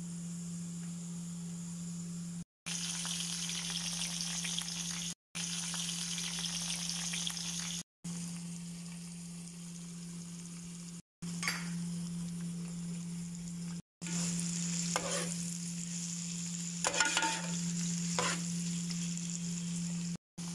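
Onions and marinated shrimp sizzling as they fry in oil in a pan, a steady hiss broken by several short gaps. A metal spoon makes a few brief scrapes and clinks in the second half as it stirs. A steady low hum runs underneath.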